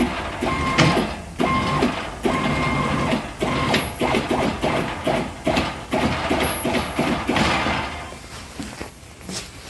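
Stepper motors of a home-built CNC table driving the gantry in short start-stop moves, a whine in repeated bursts.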